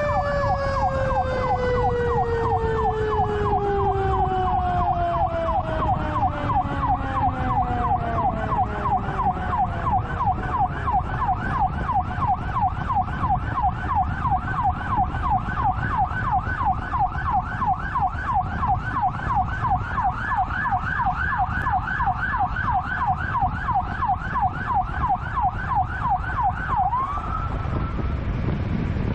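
Fire apparatus siren on yelp, rising and falling about three times a second, with a second siren tone sliding slowly down in pitch and fading over the first several seconds. The yelp cuts off near the end, leaving the steady rumble of the truck's engine and road noise.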